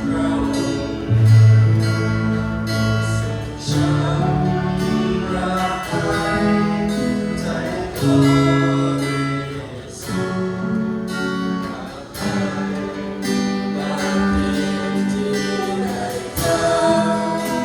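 Worship song played by a church worship team: acoustic guitar strumming under sustained sung melody notes.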